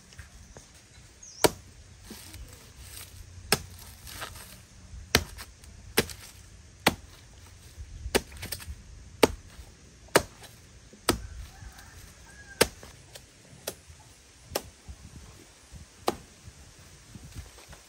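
Chopping with a blade: about a dozen sharp chops, roughly one a second at an uneven pace.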